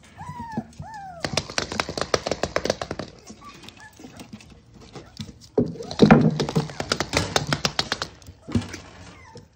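Cavoodle puppy giving two short whining cries that rise and fall, followed by rapid clicking and tapping as the puppies scrabble and play around the ball and a plastic toy, loudest about six seconds in.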